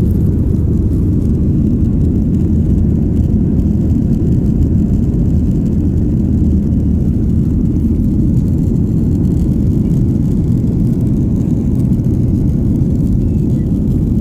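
Air India Express Boeing 737-800 jet airliner after take-off: its engines and airflow make a steady, loud, low rumble that stays even throughout.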